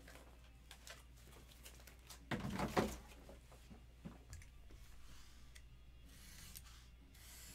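Quiet handling of sealed cardboard trading-card boxes on a table: a bump and rustle a little past two seconds in, scattered light clicks, then a faint scratchy hiss near the end as a box cutter slits open a sealed box.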